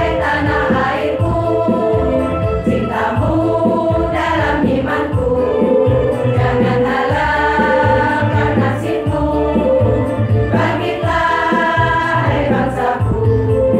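Women's choir singing an Islamic song together, holding long notes.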